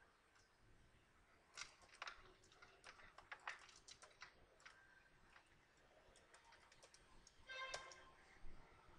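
Faint computer keyboard typing, keys clicking irregularly in small clusters, with a brief pitched sound near the end.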